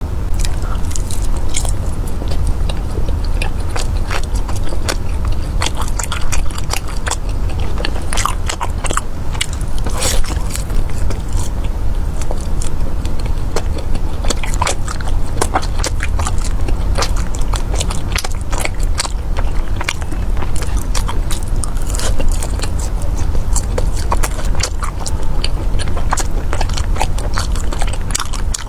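Close-miked biting and chewing of crunchy, syrup-glazed fried dough pastries (mi san dao and tang erduo), with many irregular sharp crackles and crunches over a steady low hum.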